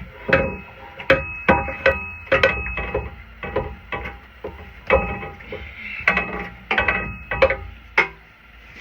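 Repeated sharp metal-on-metal strikes on a rusted exhaust pipe and flange, each ringing briefly at the same few pitches, in irregular clusters of one to three blows about every second.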